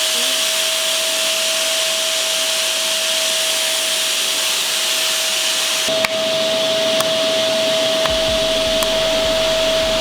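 Household vacuum cleaner running on its maximum setting: a steady motor whine over the rush of air. About six seconds in there is a click and the whine gets a little stronger.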